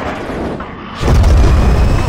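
Fighter-jet roar mixed with a deep cinematic boom, surging suddenly to full loudness about a second in and staying heavy in the low end.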